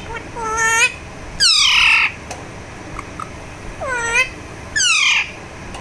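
Alexandrine parakeet giving four short squawking calls, each sliding in pitch. The second call, about a second and a half in, is the loudest and longest.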